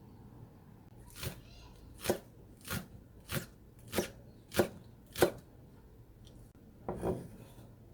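Kitchen knife chopping down onto a cutting board: seven sharp, evenly paced cuts about two-thirds of a second apart, then a quick double knock near the end.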